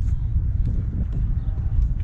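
Wind buffeting the microphone: a steady, uneven low rumble. A few faint sharp pops of paddles striking balls on neighbouring pickleball courts.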